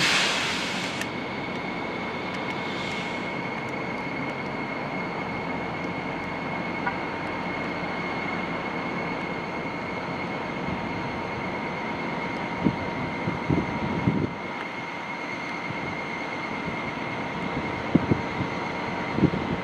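A steady mechanical drone with a high whine running through it, a short hiss at the start, and a few sharp knocks past the middle and again near the end.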